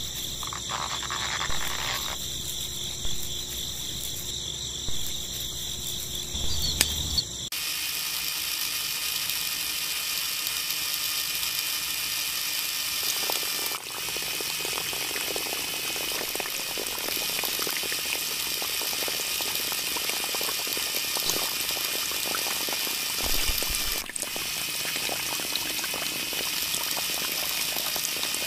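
A steady high-pitched chirring for the first several seconds. About seven seconds in it gives way to a continuous splashing of water as the mini pump's stream pours from its spout onto the ground.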